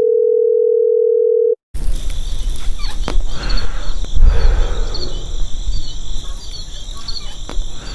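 A telephone tone, one steady beep held for about a second and a half, cuts off abruptly. After a short gap comes outdoor ambience: small birds chirping repeatedly over a low rumble, with a couple of faint clicks.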